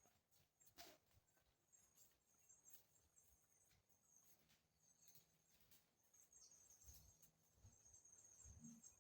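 Near silence: faint outdoor background with a thin high steady hum, a few faint clicks and soft low thuds near the end.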